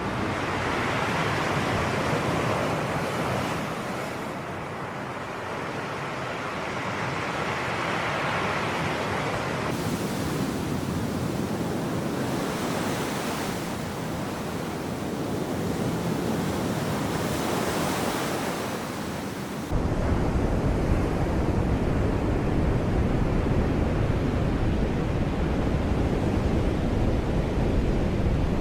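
Sea surf, waves washing in and out in slow swells of hiss every few seconds. About two-thirds of the way through, a low rumble of wind on the microphone starts suddenly and stays under the surf.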